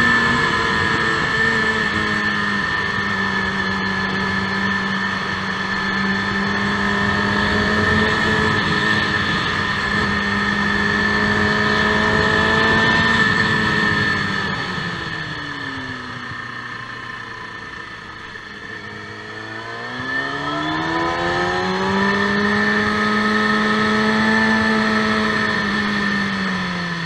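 KTM sport motorcycle's engine heard onboard at track pace: holding a steady pitch, dropping low a little past halfway as the bike slows, then rising again under acceleration and easing off near the end.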